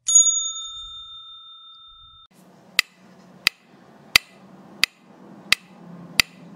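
A single bright chime sounds at the start and fades out over about two seconds. Then comes a steady run of sharp ticks, about three every two seconds, over a faint low hum.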